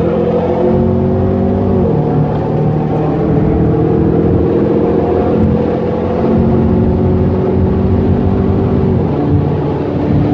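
Chevrolet Camaro ZL1's supercharged V8, heard from inside the cabin, pulling hard under acceleration with its pitch climbing steadily. The pitch drops sharply at an upshift about two seconds in and again near the end, then climbs again.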